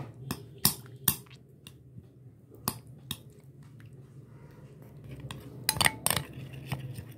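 Metal spoon stirring cream cheese and milk in a glass bowl, clinking against the glass now and then, with a cluster of quick clinks near the end. A low steady hum runs underneath.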